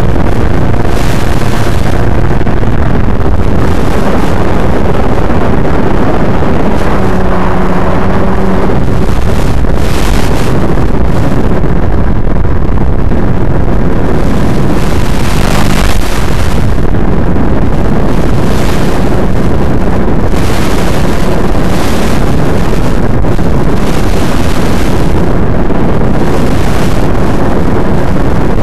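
Loud, constant rushing wind noise on an FPV model plane's onboard microphone in flight, with the faint steady hum of its electric motor and propeller underneath.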